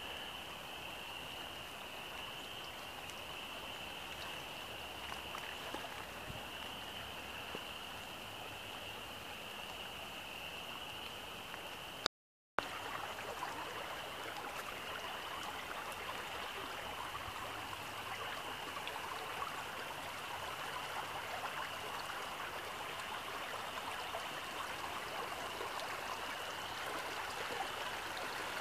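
Rain-swollen creek rushing steadily over its bed, with a thin, steady high-pitched ringing above it. About twelve seconds in the sound cuts out for a moment, then the rushing comes back a little louder.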